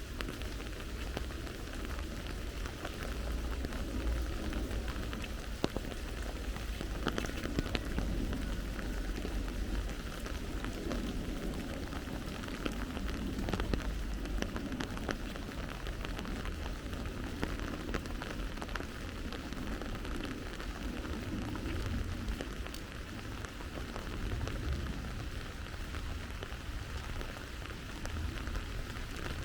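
Steady rain falling on surfaces, with scattered drop ticks, over a low rumble.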